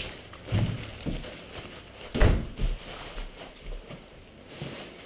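Handling noise of a nylon parachute canopy and its suspension lines being gathered by hand: soft irregular rustles and bumps, with one louder thump a little over two seconds in.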